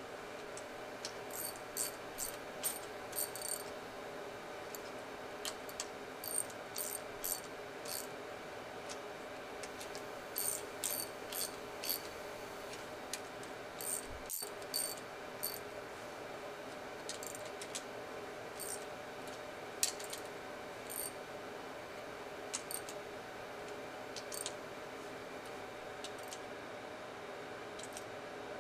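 Socket ratchet wrench clicking in short bursts of several quick clicks, with pauses between, as the bolts holding the pulsation dampener's liquid chamber are given their final tightening.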